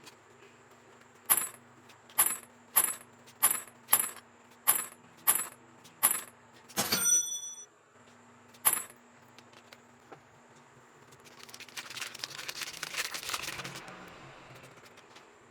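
A run of about eight sharp, ringing clicks about half a second apart, then a brighter metallic clink and one more click. Later come a few seconds of crinkling as the packaging of a Pokémon card pack is handled.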